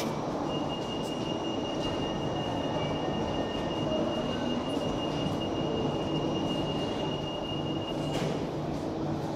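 Copenhagen Metro train running at a station platform. A steady high-pitched whine is held for about seven seconds and ends in a clatter, over a continuous low rumble and hum.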